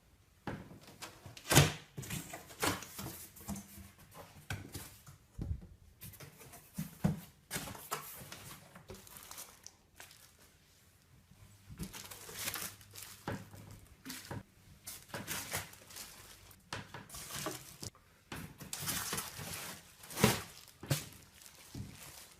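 Irregular clicks, knocks and rustling of things being handled, with a sharper knock about a second and a half in and another near the end.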